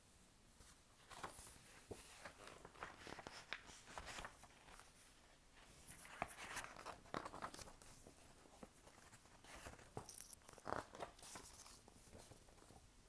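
Faint rustling of paper as a paperback picture book is opened and its pages are turned, with a few soft clicks and taps in scattered bursts.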